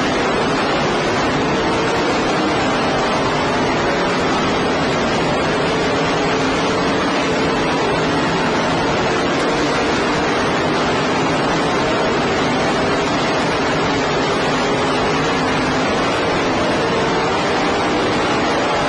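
Race car engines running at speed during a race, turned by a poor, overloaded recording into a steady wash of noise with faint engine pitches rising and falling through it.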